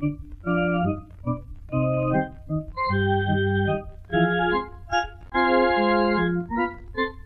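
Organ music accompaniment playing short phrases of held chords alternating with quicker single notes, with brief pauses between phrases.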